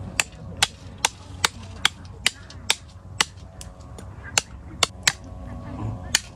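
A large knife chopping into a pig's head, a run of sharp strikes about two to three a second, with a short pause about halfway through.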